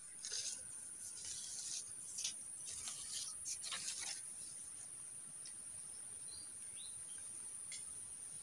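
Steady high-pitched drone of insects, with scattered short rustling noises over the first four seconds and a few faint bird chirps past the middle.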